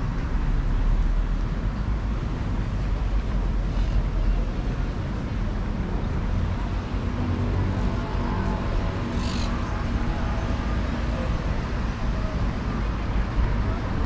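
Seafront promenade ambience: a steady low hum of road traffic, with faint voices of people walking by.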